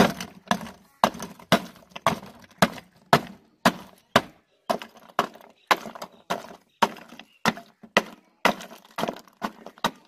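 Block ice being pounded and broken up with the end of a wooden pole inside a metal ghee tin: a steady run of knocks and crunches, about two strikes a second.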